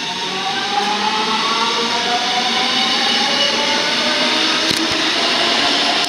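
DB Regio electric multiple unit pulling away, its traction motors whining in several tones that rise slowly as the train gathers speed.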